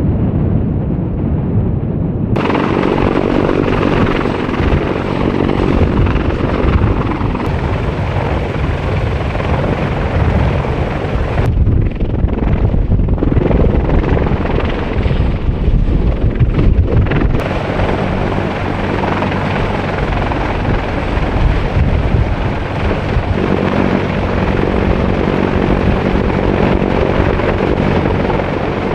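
Sikorsky CH-53E Super Stallion heavy-lift helicopter running close by with a loud, steady drone from its rotors and three turboshaft engines. The sound changes abruptly about two seconds in, again near the middle and a little later, where shots are cut together.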